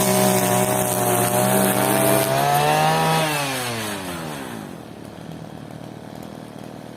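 Petrol grass trimmer (brush cutter) engine running at high revs. About three seconds in its note rises briefly, then falls away steadily as the engine slows down, leaving a quieter low sound.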